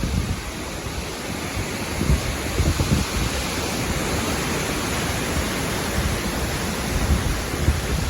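Strong storm wind blowing steadily, with gusts buffeting the microphone in a low rumble, strongest about two to three seconds in.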